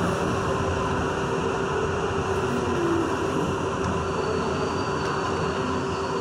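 R62 subway car running through a tunnel, heard from inside the car: a steady rumble of wheels on rail with a faint steady tone.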